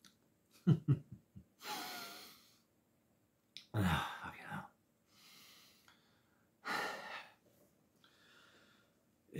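A man tasting ice cream with no words: a few short knocks about a second in, then loud breaths and short wordless voice sounds as he eats, in three separate bursts.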